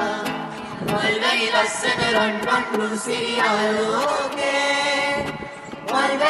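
A group of young voices singing a Sinhala song together, accompanied by a strummed acoustic guitar, with a brief break between sung lines near the end.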